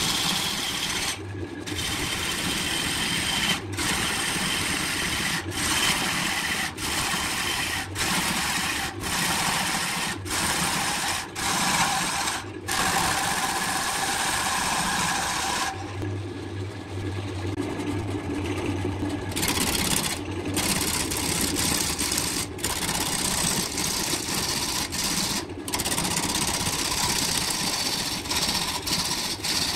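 A wood lathe spinning a large blank while a hand-held gouge cuts into it, with a steady rough scraping and tearing of wood shavings. The cutting eases off for about three seconds in the middle, leaving mostly the lathe's hum.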